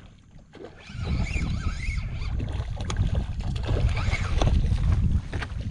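Wind buffeting the microphone, a low rumble that comes in about a second in and keeps going, with a few faint high chirps above it.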